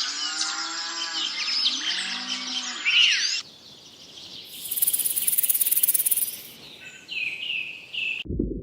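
A cow mooing among chirping birds for about the first three seconds. The sound then cuts to a quieter stretch with a high, steady buzz and a few chirps.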